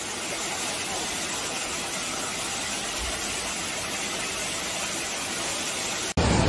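Steady rushing noise of floodwater flowing through a street, cutting off abruptly near the end.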